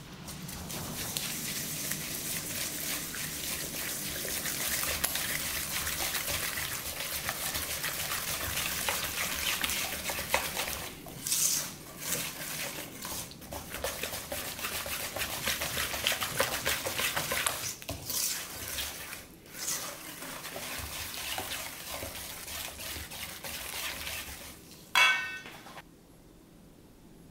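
Silicone-coated whisk beating a wet batter in a stainless steel bowl: rapid, continuous swishing and scraping against the metal, broken by a few brief pauses. Near the end comes a single ringing metallic clink.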